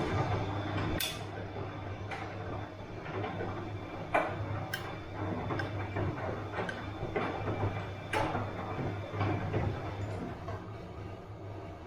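Bosch washing machine running mid-cycle: a steady low motor hum as the drum turns, with irregular clicks and knocks from the load inside.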